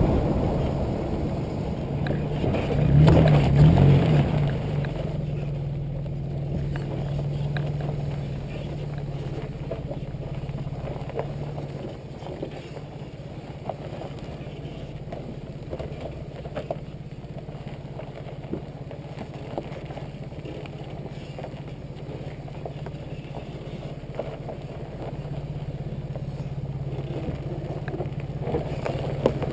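2005 Nissan Xterra's 4.0-litre V6 running at low speed off-road, picked up from low on the rear bumper, with a brief rev about three seconds in and a slight rise near the end. Scattered short knocks and clicks come through over the bumpy track.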